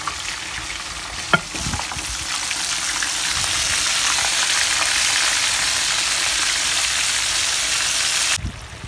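Floured sosso fish frying in hot oil in a pan: a steady, loud sizzle. A sharp click comes about a second and a half in, the sizzle swells soon after, and it stops abruptly near the end.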